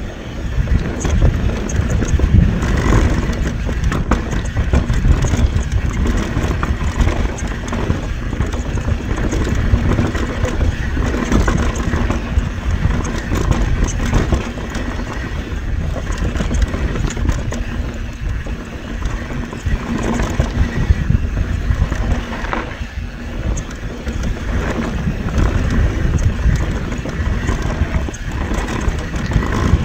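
Raw sound of a YT Tues downhill mountain bike ridden fast down a rocky, rooty trail: tyres rolling over dirt and rocks, with the chain and frame rattling constantly over a heavy low rumble.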